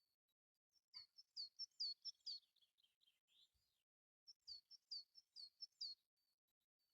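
A bird singing faintly: two phrases of quick, high chirps, about six notes each, and a lower warble after the first phrase.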